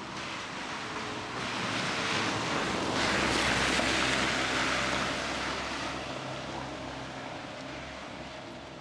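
A car passing on the street: a rushing tyre and engine noise that swells over a couple of seconds, is loudest about halfway through and fades away. A steady low hum runs underneath.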